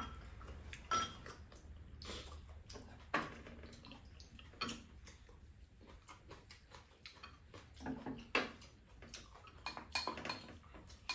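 Spoons and chopsticks clinking and scraping against ceramic rice bowls during a meal, in scattered irregular taps, a few of them ringing briefly.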